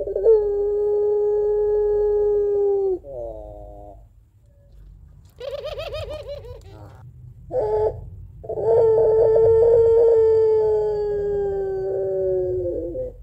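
Puter pelung dove (a Barbary ringneck dove bred for long calls) giving its long 'crying' call: a steady held note of about three seconds that drops at the end, a short rippling call, then a longer held note of about four seconds that sags slightly and drops at its close.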